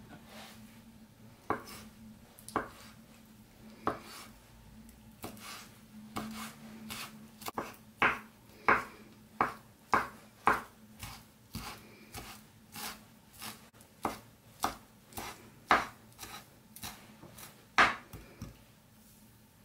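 Kitchen knife chopping a boiled egg on a bamboo cutting board: sharp knocks of the blade on the board, a few spaced strokes at first, then a quicker run of about one and a half a second that stops shortly before the end. A faint steady hum lies underneath.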